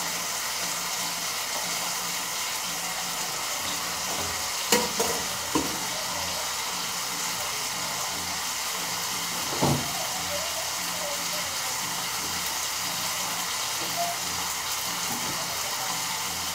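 Pork chops frying in oil in a skillet: a steady sizzle. A few brief knocks sound out over it about five seconds in and again near ten seconds.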